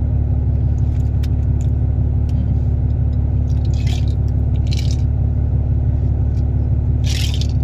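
Steady low rumbling hum, with a few short crunchy chewing sounds of cookie being eaten about four, five and seven seconds in.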